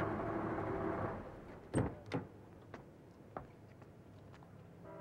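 Car door being opened: two sharp clunks of the latch and door in quick succession, followed by a few lighter clicks. A steady background sound stops about a second in.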